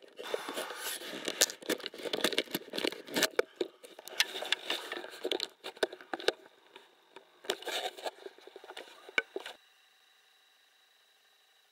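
Rustling, crackling and scraping right against a small camera's microphone, thick with sharp clicks. It stops suddenly about nine and a half seconds in, leaving only faint hiss.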